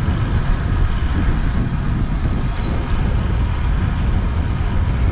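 Wind buffeting an action camera's microphone as a bicycle rides along at speed: a steady low rumbling rush.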